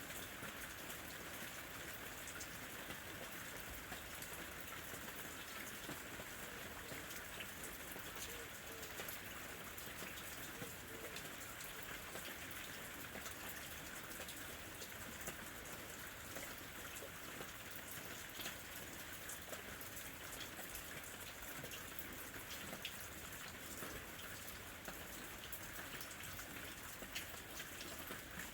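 Steady rain falling, with many individual drops heard as small ticks over an even hiss.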